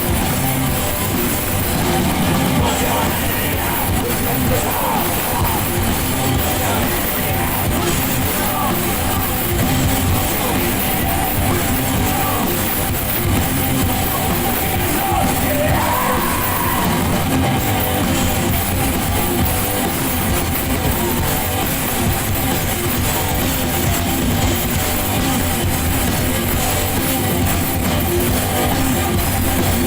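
Live rock band playing loudly, with distorted electric guitar and drums, heard in a large concert hall.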